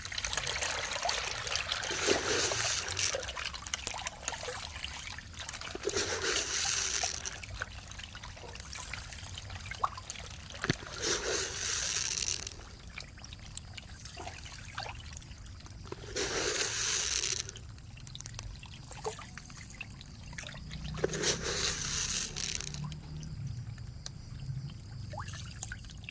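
Water in a catfish pond splashing and trickling in repeated bursts, about five seconds apart, with quieter water sounds in between.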